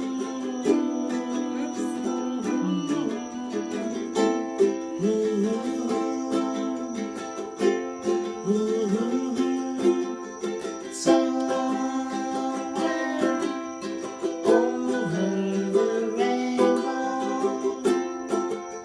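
Ukulele strummed in a steady rhythm, chords changing every few seconds.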